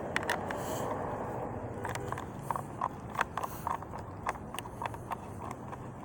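Irregular light metallic clicks and taps, a few a second from about two seconds in, as hand tools work on the parts of a tilt steering column during disassembly.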